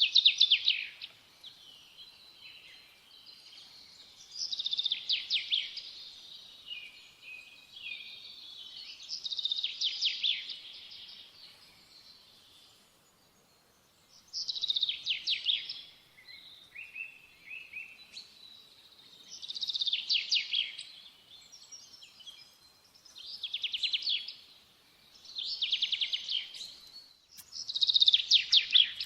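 A songbird singing: short, rapid trilled phrases repeated every few seconds, with quieter chirps between them.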